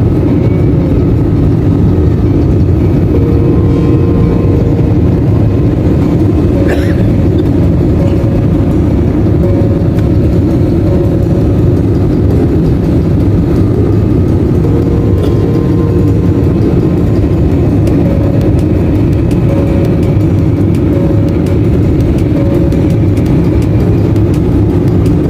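Steady, loud low rumble of a jet airliner's engines and airflow heard inside the passenger cabin. There is a brief click about seven seconds in.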